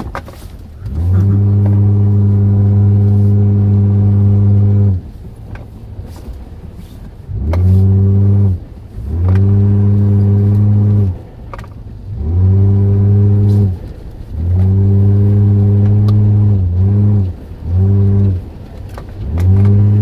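Toyota Land Cruiser engine revving in about eight bursts on and off the throttle, each one rising, then held at a steady pitch for one to four seconds before dropping back, as the 4x4 pushes through deep snow and slush.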